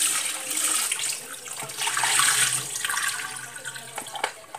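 Water running and splashing as fish is washed, with scattered small clicks and knocks. It fades near the end.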